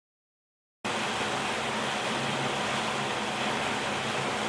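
Steady rushing noise with a low hum underneath, cutting in abruptly about a second in.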